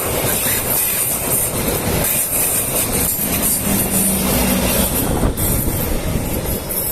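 A train passing close by, loud and steady: the running noise and clatter of its wheels on the rails, with a strong high hiss.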